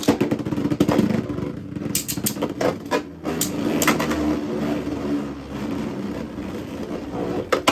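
Two Beyblade Burst spinning tops whirring in a plastic stadium, with sharp clicks as they hit each other and the stadium walls, a quick run of hits about two seconds in and another near the end.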